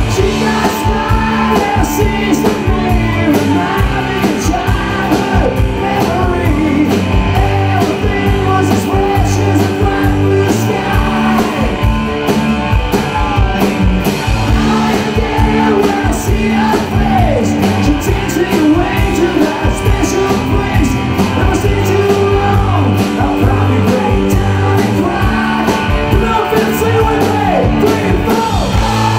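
Live rock band playing: electric guitars and a drum kit keeping a steady beat, with a sung lead vocal over them.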